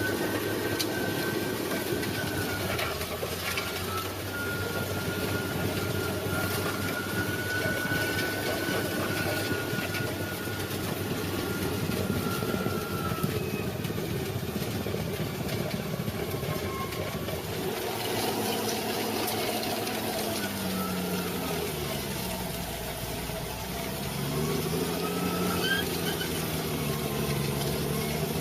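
Heavy equipment engine running steadily, with a thin high whine in the first half; later its pitch rises and falls several times as it is worked.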